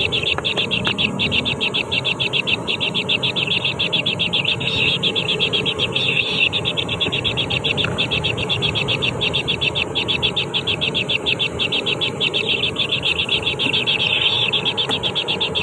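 Nestling birds begging in the nest: a rapid, unbroken run of high chirps, many a second.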